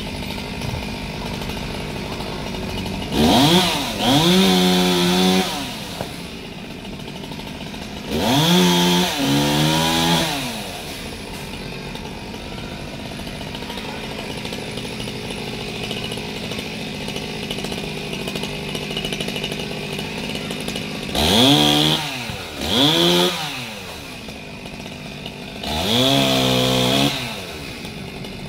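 Chainsaw idling, throttled up five times with a sharp rise in pitch, each burst held at full speed for one to two seconds before dropping back to idle.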